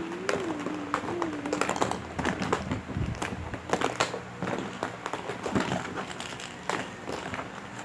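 Plastic surprise eggs clicking and clattering against each other as they are handled and gathered, in quick irregular taps.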